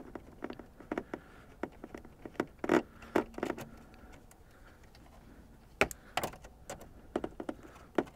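Irregular clicks and light knocks of a socket driver backing out a 7 mm bolt from the plastic dash trim, with the trim rattling as it is handled; a few louder clicks come about three seconds and six seconds in.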